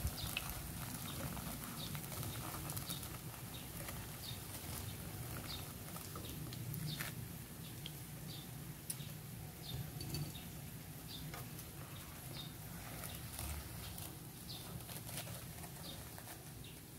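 Oil sizzling and crackling in a frying pan around breaded Spam katsu cutlets as they shallow-fry, with many small irregular pops.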